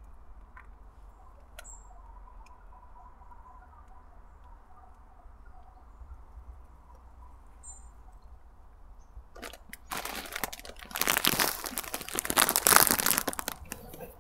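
A few faint, short bird chirps. Then, from about ten seconds in, loud rustling and crinkling as packaging is handled and pulled out of a cardboard box.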